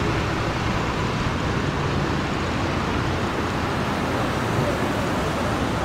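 Cars driving past on a city street close by, a steady hum of tyres and engines.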